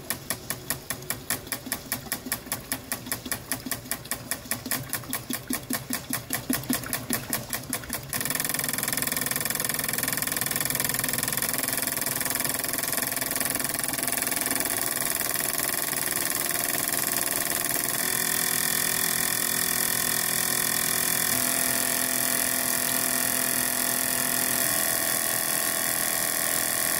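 An ASNU injector flow bench firing eight uncapped fuel injectors in a dynamic test: a rapid, even clicking of about five pulses a second as the injectors spray. About eight seconds in it changes abruptly to a continuous spray hiss with a steady hum.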